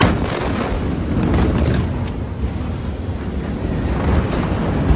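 Blast wave of the Beirut port ammonium-nitrate explosion reaching the phone: a sudden loud boom that carries on as a continuing rumble, buffeting the microphone, with scattered cracks.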